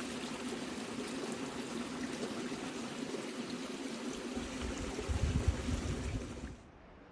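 Running water, a steady rush like a stream, with a little low rumble near the end; it cuts off suddenly about six and a half seconds in.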